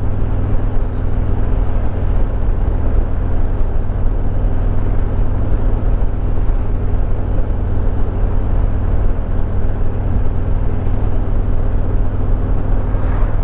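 Harley-Davidson Road Glide Limited's Milwaukee-Eight 114 V-twin running at a steady cruising speed, with wind and road noise rushing over it.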